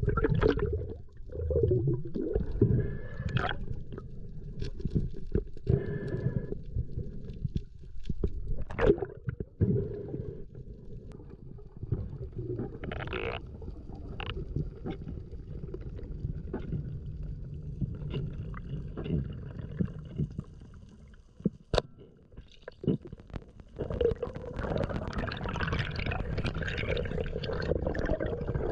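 Muffled underwater water noise: steady low rumbling and gurgling, broken by scattered short clicks. A single sharp click comes about three quarters of the way through, and a louder rush of bubbly water follows in the last few seconds.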